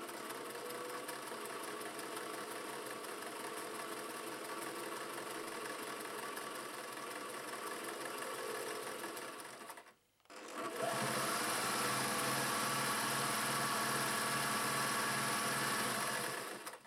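Singer 404G sewing machine with its direct-drive motor running fast, stitching a straight seam. It stops briefly about ten seconds in, then runs again, louder, sewing through several folded layers of fabric, and stops just before the end.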